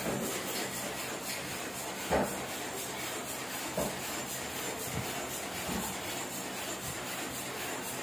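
Heidelberg GTO offset printing press running, a steady mechanical noise with a quick, even ticking, while its ink rollers are inked by hand. A few sharp knocks stand out, the loudest about two seconds in.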